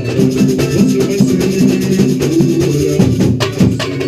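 Samba played by a percussion group: a dense, even shaker rhythm and drums over a line of pitched notes, with no singing.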